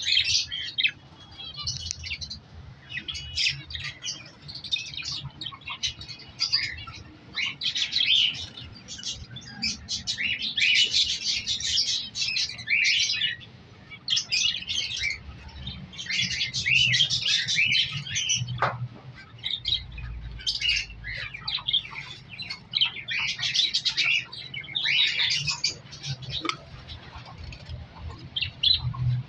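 Budgerigars chirping and chattering in a continuous stream of rapid high chirps and warbles. There is one sharp click about two-thirds of the way through.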